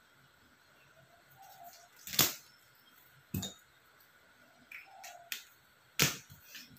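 A few sharp clicks and knocks from hand work on a wire cage frame with a marker pen, the two loudest about two seconds and six seconds in.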